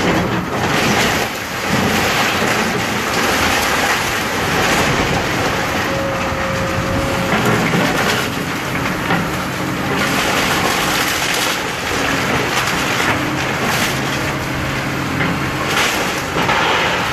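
Excavator's diesel engine running under load while its arm tears into wooden framing, with repeated crunching, cracking and crashing of falling debris.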